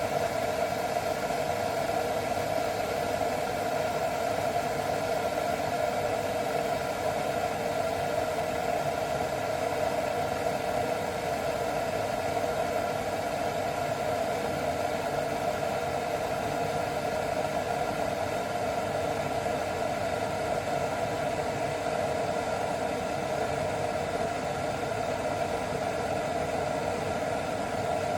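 Govee stainless steel gooseneck electric kettle heating cold water: a steady, even hiss and hum of the water coming up to temperature.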